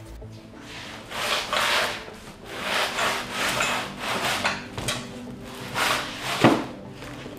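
Cardboard and metal scraping as a long black square-tube part is slid out of a long cardboard box on a wooden workbench: several drawn-out rubbing scrapes, then a sharp knock near the end.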